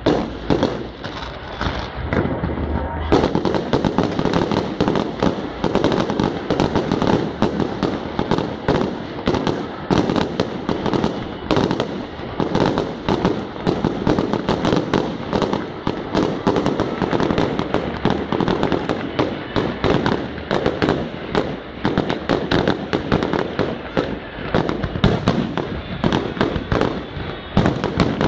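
Fireworks finale: a rapid, unbroken barrage of bangs and crackling from aerial shells, growing denser about three seconds in.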